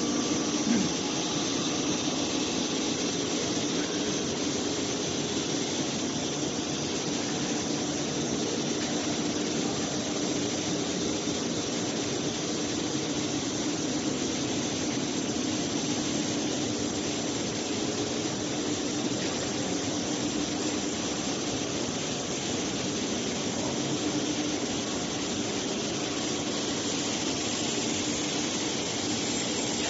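Steady machinery noise from a running welding-wire drawing and copper-coating line: an even hiss with a constant hum.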